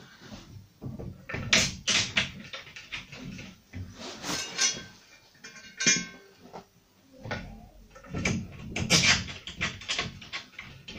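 Knocks and clatters from a wooden rail being handled against a plasterboard stud wall, with small metal clinks from the M5 screws and hollow wall anchors, and a brief metallic ring about six seconds in.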